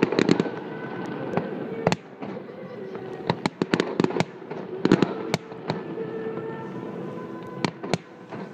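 Aerial fireworks display: shells bursting in irregular, sharp bangs and crackles, with a dense cluster of reports near the start and another around the middle.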